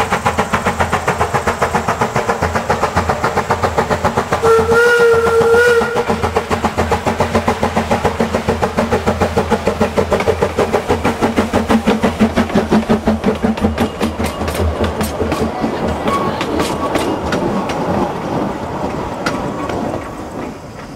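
Narrow-gauge steam locomotive #242 running past: a fast, steady beat of exhaust chuffs, with one short blast on its steam whistle about four and a half seconds in. After it passes, the chuffing fades and thins to sharper clicks as it draws away.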